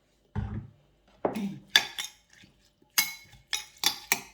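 Kitchen utensil clinking against a bowl while a Thai salad dressing is mixed: a dull knock about half a second in, then a run of sharp ringing clinks, roughly two a second.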